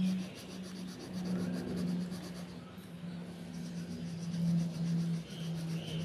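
Colour pencil shading on paper: quick, even back-and-forth scratching strokes. A low held tone sounds underneath throughout.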